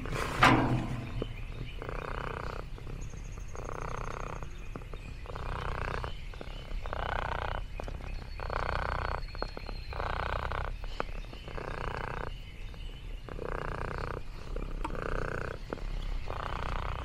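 Domestic cat purring close to the microphone, in even pulses of about a second that rise and fall with each breath, roughly every second and a half. A brief sharp sound about half a second in is the loudest moment.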